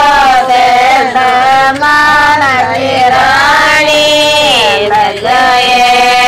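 A woman singing a devotional bhajan to the goddess Jeen Mata, with long, drawn-out melodic notes that glide between pitches.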